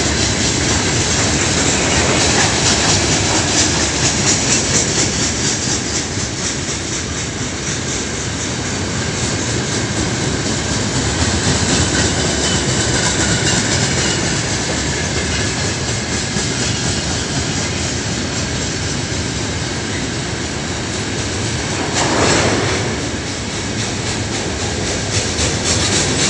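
Freight train of loaded open-top gondola wagons rolling past close by: a steady rumble and clatter of steel wheels over the rail joints, with a brief louder rush of noise near the end.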